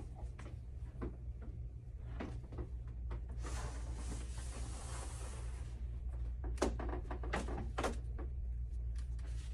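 Clothes and a pet stroller being handled: a few seconds of fabric rustling in the middle, then a cluster of sharp clicks and knocks, over a steady low hum.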